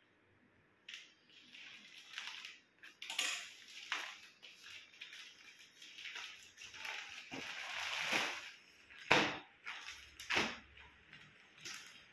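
Plastic courier mailer and clear plastic bag crinkling and rustling irregularly as the package is torn open and the bagged T-shirt is pulled out, with two louder, sharper crackles near the end.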